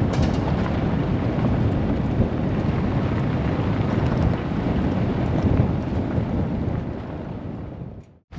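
Waterfall roar: a loud, steady rush of falling water, deepest in the low end, that fades out near the end and stops abruptly.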